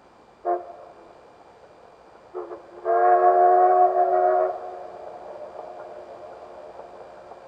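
Oigawa Railway steam locomotive whistle sounding three times: a brief toot, then a short blast and a long blast of about a second and a half. A fainter steady running noise from the train carries on after the whistle.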